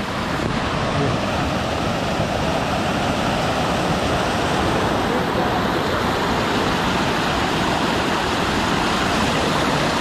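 Steady rush of falling water from a waterfall, a continuous even noise without breaks.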